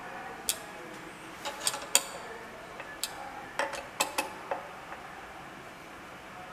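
About ten light metallic clicks and clinks scattered over the first four and a half seconds: a screwdriver and bolts being worked on, and the screwdriver set down on, a resin 3D printer's metal top plate while the plate's bolts are tightened.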